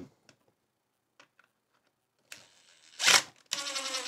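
Cordless drill driving a screw into wood: a short burst of the motor, then a sustained whine whose pitch drops as the screw tightens, about two thirds of the way in.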